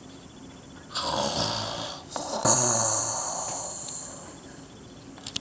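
A person imitating snoring: a rasping snore drawn in about a second in, then a long hissing exhale that fades away.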